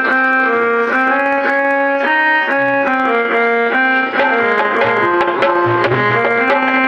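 Instrumental music: a melody of held notes stepping up and down, over hand-drum strokes of tabla type; a low drum tone pulses steadily in the second half.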